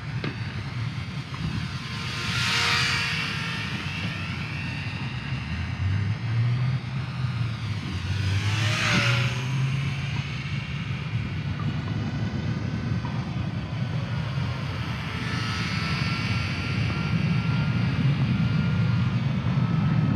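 Eachine Spitfire micro RC warbird's electric motor and three-bladed propeller whining as it circles, the whine swelling and bending in pitch each time the plane passes close, about three times, over a steady low rumble.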